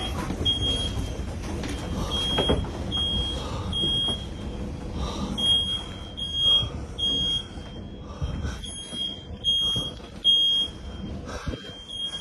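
A smoke alarm beeping again and again in a high, piercing tone, in runs of a few beeps with short gaps between them. Underneath runs the low rumble of the tornado's wind, with a few dull thuds.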